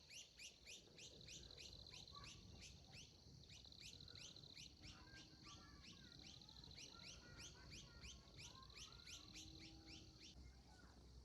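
Faint birdsong: a rapid regular series of high, downward-sliding notes, about three a second, over a steady high note, with softer chirps lower down; the series stops shortly before the end.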